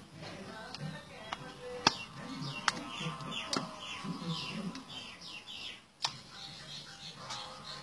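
Sharp wooden clicks and knocks as the sliding panels of a hand-carved wooden secret box are shifted and snapped into place: four loud ones and a few fainter. Repeated high falling chirps run under them.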